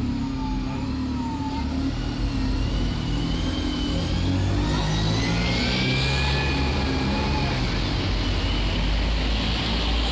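Diesel London buses running and pulling past close by, a steady low engine hum with a rising whine that climbs for a few seconds before settling.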